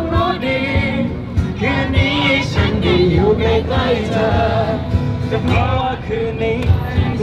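Live street busking: a man singing a pop song through a handheld microphone and street PA, with steady instrumental backing.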